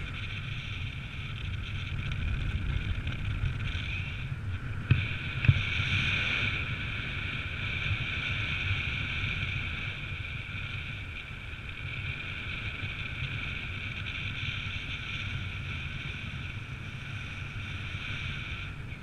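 Wind rushing over the camera microphone in paraglider flight: a steady airflow hiss with a hollow whistling edge and low buffeting rumble. Two brief knocks about five seconds in.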